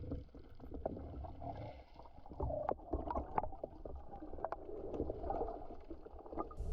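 Muffled underwater sound heard through a camera's waterproof housing: a low rumble with scattered light clicks and knocks.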